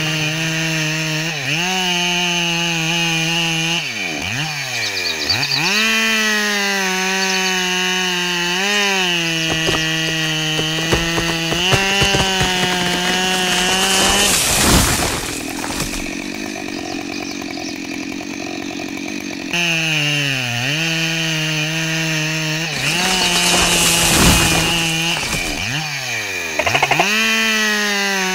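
A small motor running with a high whine. Its pitch sags sharply several times, about 4, 20 and 26 seconds in, as it takes load, then recovers. For several seconds in the middle the whine gives way to a rougher, noisier sound.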